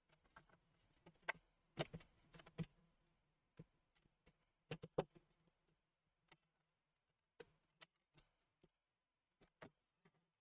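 Sparse, quiet plastic clicks and light knocks, spaced irregularly and loudest in the first half: a plastic pry tool working at the hinge edge of a laptop's plastic case, then the lid being closed and the laptop handled on the table.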